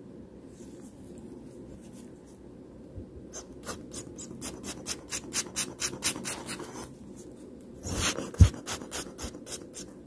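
Pegwood stick twisted and rubbed in the jewel holes of a Rolex calibre 3035 watch movement, to pick out old dried oil: short scratchy strokes about four a second, with a louder scrape and a low knock about eight seconds in.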